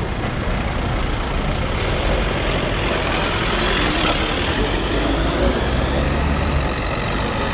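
Town street traffic: engines rumbling and tyre noise from passing cars, with a minibus driving past close by about halfway through.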